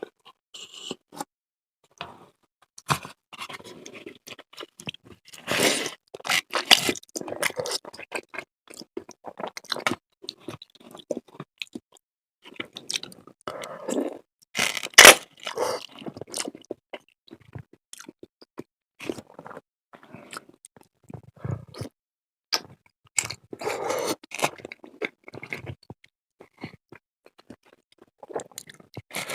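A person chewing and crunching mouthfuls of food, with scrapes and irregular smacking clicks; the loudest burst comes about halfway through.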